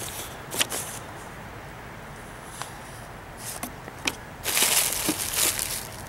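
Plastic bubble-wrap packaging crinkling as a replacement HVAC fan control board is unwrapped from its cardboard box. A few light handling clicks come first, then denser, louder rustling starts about four and a half seconds in and lasts about a second.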